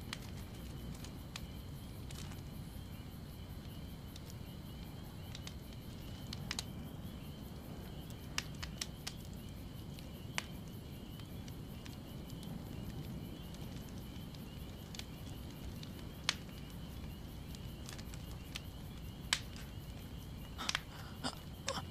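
Quiet night ambience: a faint steady high insect trill over a low rumble, with scattered sharp crackles and clicks that come thicker near the end.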